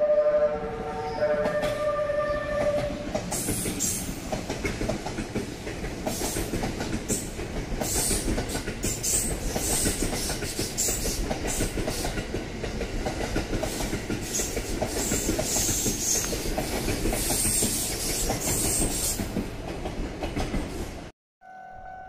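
JR East E001 series Train Suite Shiki-shima passing, a steady rumble of wheels on rail with frequent clicks over joints and points. It opens with a short run of horn-like tones at different pitches. After a sudden cut near the end, a steady tone is heard.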